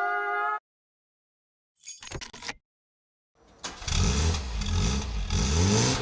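Singing cuts off just after the start; after a short burst of noise near two seconds, an engine starts running and revving from about three and a half seconds, its pitch rising and falling.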